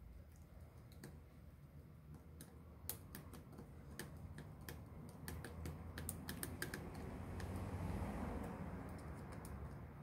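Small screwdriver working the screws of a refrigerator's evaporator fan motor during disassembly: a run of small, irregular metal clicks and taps, with a louder rubbing, scraping noise near the end.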